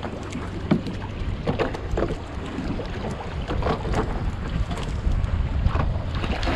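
Wind buffeting the microphone on a small fishing boat at sea, with a steady low rumble and scattered sharp clicks and knocks.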